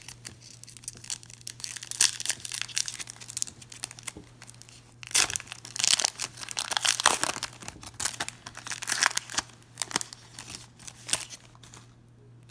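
A trading-card pack wrapper being torn open and crinkled in irregular crackling bursts, heaviest about two seconds in and again from five to eight seconds.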